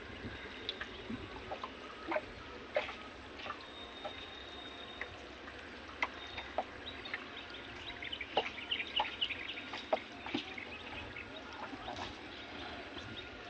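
Birds calling and chirping now and then, with a quick run of chirps a little past the middle, over steady background noise.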